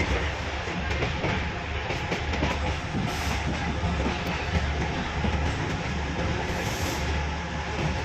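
Kuranda Scenic Railway train running on the line, heard from its old timber carriages: a steady low rumble of wheels on the rails that swells and eases every second or two.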